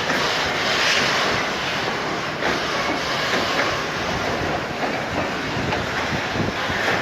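Railway wagons rolling past with a steady rumble and an irregular clatter of wheels over the track.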